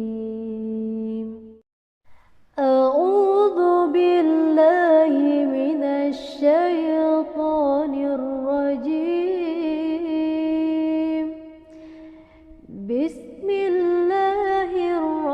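A solo voice chanting in long, ornamented melodic phrases, in the style of Qur'anic recitation. It breaks off briefly about two seconds in and sinks low for a moment near the end.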